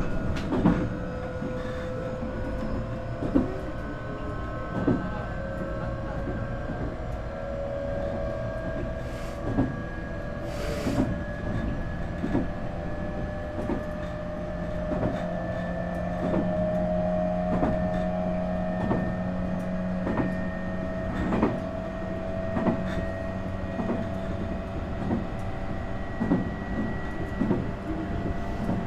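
Nankai 8300 series train running, heard from inside the motor car: the whine of its Hitachi IGBT VVVF inverter and Toyo Denki TDK-6315-A totally enclosed induction motors rises slowly in pitch as the train gathers speed, over a steady rumble. The wheels click over rail joints every second or two.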